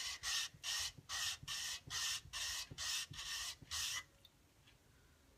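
Cast resin bangle's rough edge rubbed in circles on wet sandpaper, in about nine even strokes roughly two a second, stopping about four seconds in. This is wet sanding to smooth the rough cast edge.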